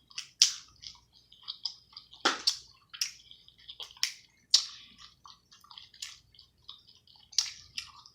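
Close-miked eating sounds of a saucy seafood boil: wet chewing, lip smacks and slurps, a rapid string of short clicks and smacks, some much louder than others.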